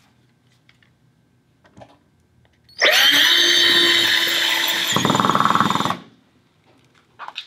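Cordless drill driving a Tapcon masonry screw into a concrete block wall. The motor whirs for about three seconds, turns to a fast rattle for its last second, then stops.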